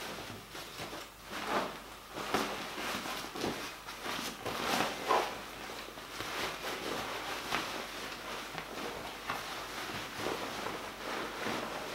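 Fabric rustling and rubbing as a pillow insert is worked into a knit cushion cover: a run of soft, irregular swishes.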